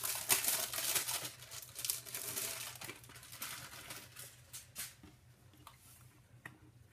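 Clear plastic packaging of a paper kit rustling and crinkling as it is handled, loudest in the first few seconds, then dying down to a few faint taps and rustles.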